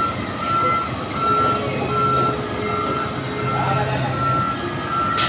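Reversing alarm on a heavy vehicle: a steady beep repeating about every three-quarters of a second, over the low hum of its engine running.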